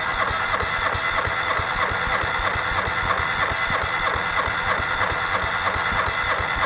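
Nissan twin-cam four-cylinder engine turned over steadily by the starter motor, with an even, rhythmic chug. It cranks without firing because the injectors and ignition are disconnected for a compression test, with the throttle held wide open.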